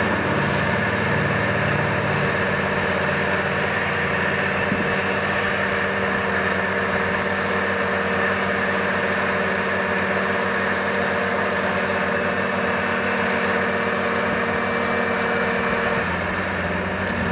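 John Deere 8530 tractor's six-cylinder diesel engine running steadily under load, pulling a Horsch Pronto KR rotary-harrow seed drill. The tone shifts slightly near the end.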